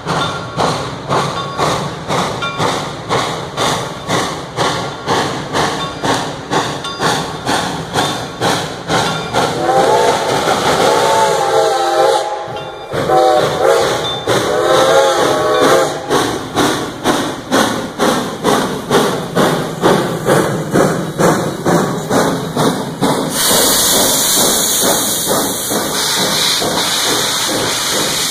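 Reading & Northern No. 425, a 4-6-2 Pacific steam locomotive, chuffing about twice a second as it works along the track and passes close by. Its steam whistle sounds two long blasts around the middle, and a loud hiss of steam joins a few seconds before the end.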